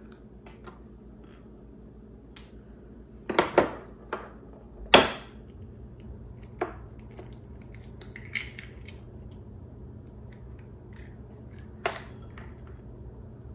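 Eggs being cracked one at a time against a small glass bowl: scattered sharp taps and shell cracks, the loudest about five seconds in.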